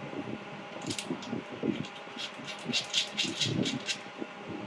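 A quick series of clicks and rattles as a foot switch's plug and cable are handled and plugged into the laser welder, over a faint steady hum.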